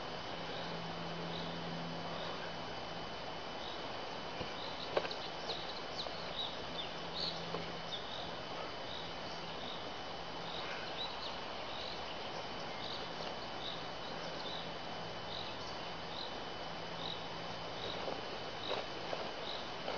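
Steady outdoor hiss with a short high chirp repeating a little more than once a second from about six seconds in, and a single sharp knock near five seconds in.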